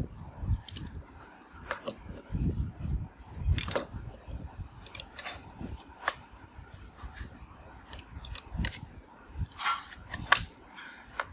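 Irregular light clicks and taps of hard plastic being handled, with a few dull low thumps in between.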